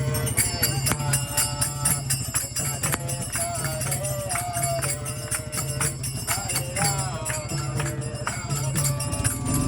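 Devotional kirtan music with fast, steady jingling percussion over a sung or played melody.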